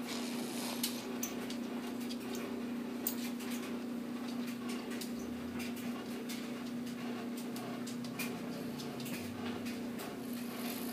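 A sleeping baby snoring, over a steady low hum.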